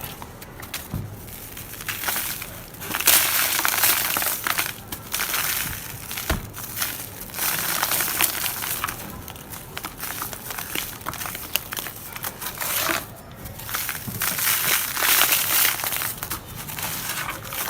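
Dry red dirt chunks being crushed and crumbled by hand into powder, a dense crisp crackling with many small sharp cracks, coming in louder stretches.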